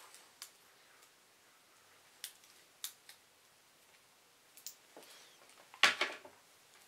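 Laptop power cords being untwisted from their ties and handled: scattered small clicks, then a louder rustle and clatter just before six seconds in.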